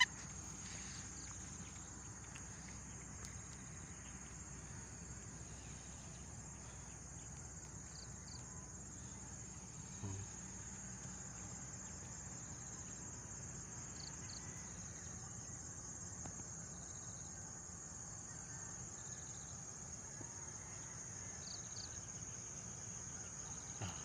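Steady high-pitched insect chorus, a continuous buzz, over faint low background noise, with one soft knock about ten seconds in.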